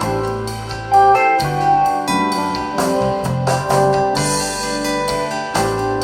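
Recorded music played through a Telefunken TA 350 amplifier and 10 MAS-1M loudspeakers and picked up in the room: a melody over a bass line with a steady beat.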